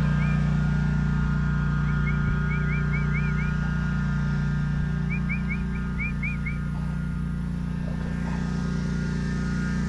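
String trimmer's small gas engine idling steadily. A bird sings three short runs of quick rising chirps over it.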